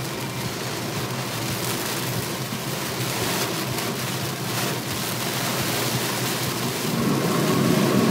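Heavy downpour on a car's roof and windscreen, heard from inside the moving car, with the hiss of tyres on the flooded road. The noise grows louder near the end.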